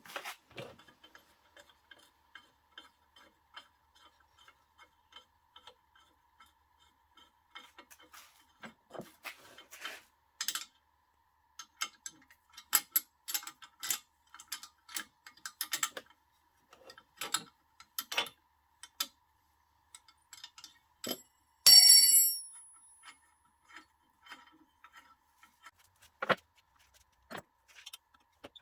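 Small metal clicks and ticks of hand tools working on the locomotive's metal parts during disassembly, faint and fairly even at first, then sharper and more scattered. About three-quarters through comes one loud ringing clink of metal on metal.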